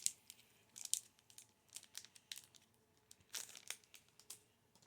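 Foil booster-pack wrapper crinkling as it is cut open and handled: faint, scattered crackles, a few about a second in and a louder cluster past the three-second mark.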